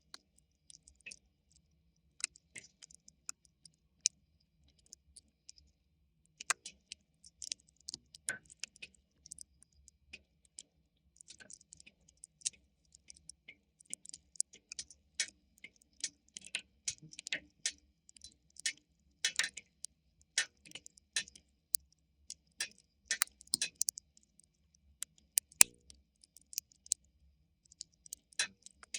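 Wood fire crackling: irregular sharp pops and snaps, sparse at first and coming thicker after about ten seconds, with one loud pop near the end.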